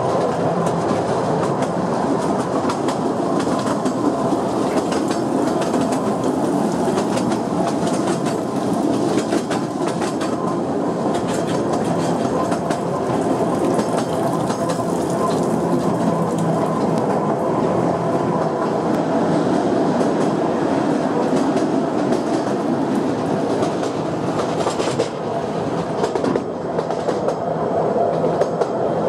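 Narrow-gauge train running steadily along its track, heard from an open carriage: a continuous rumble of wheels on rails with a fine, even clatter of rail joints and faint humming tones.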